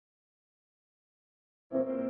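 Dead silence, then near the end a short, steady pitched tone made of several notes held together starts abruptly.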